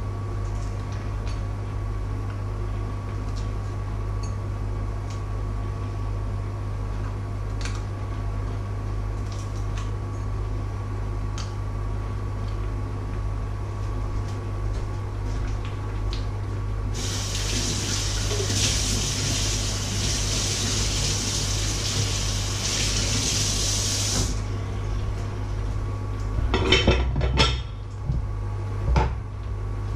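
Kitchen tap running for about seven seconds past the middle, then shut off abruptly, over a steady low hum; a few knocks of kitchenware follow near the end.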